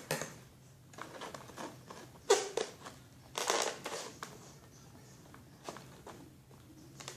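Packaging tape being picked at and peeled off a toy box, with intermittent crinkling and scraping in short bursts, the loudest a little after two seconds in and again halfway through.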